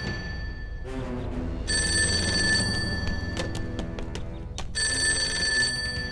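Telephone bell ringing, two rings of about a second each, roughly three seconds apart, over background music.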